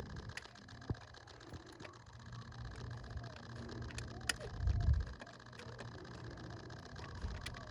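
Scattered sharp metallic clicks and knocks of hand tools and parts being worked in an engine bay, with a low rumble and one dull thump of handling noise a little before the five-second mark.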